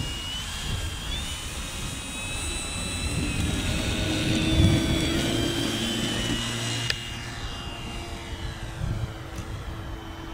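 Electric motor and propeller of a radio-controlled Cessna 182 scale model at takeoff power on its takeoff run and climb-out. The high whine rises in pitch at first and is loudest about halfway through as the model passes. It then falls in pitch as the model lifts off and climbs away.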